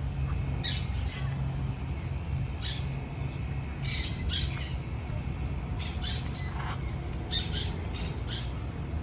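Parrots squawking: a series of short, harsh calls spread at irregular intervals, with a steady low rumble underneath.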